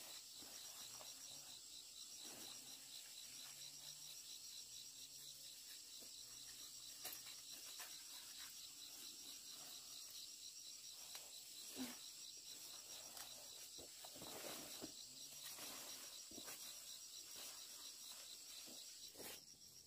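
Faint, high, steady pulsing trill of insects, with scattered soft rustles and light clicks.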